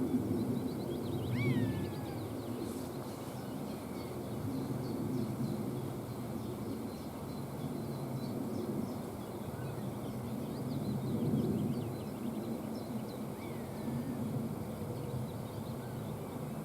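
Spring woodland birdsong: many small birds chirping high, with two downward-gliding mewing calls, typical of a common buzzard, about a second and a half in and again near the end. Under it runs a low steady rumble.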